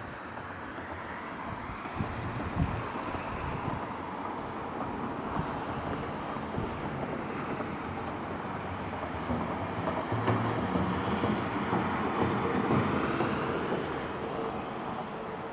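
Ocean surf washing in, swelling louder about two seconds in and again from about ten seconds in, then easing off, with wind buffeting the microphone.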